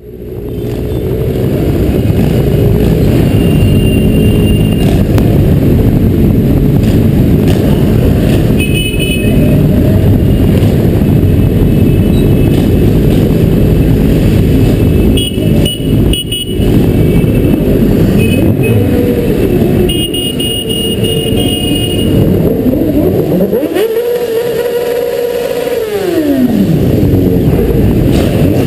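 Motorcycle engines running in a slow-moving parade column, heard through a helmet-mounted camera. Twice in the second half an engine revs up and drops back.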